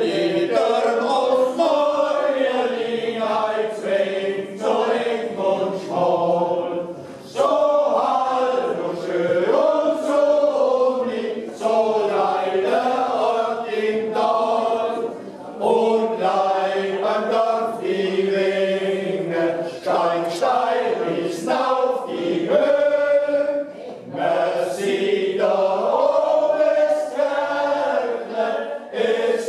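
A choir of voices singing a cappella, a continuous sung melody with no instruments.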